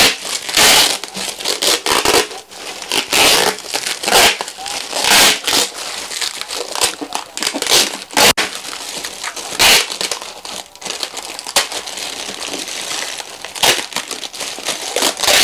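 Plastic parcel bag crinkling and rustling as it is handled and unwrapped, in irregular loud bursts.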